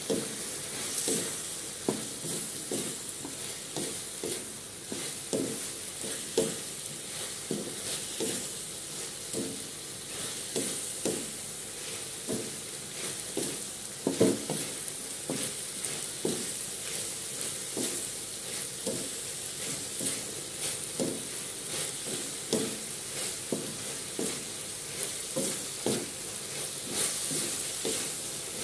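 Pork pieces sizzling in an aluminium wok while a wooden spatula stirs them, scraping and knocking on the pan about twice a second, with one louder knock about halfway through.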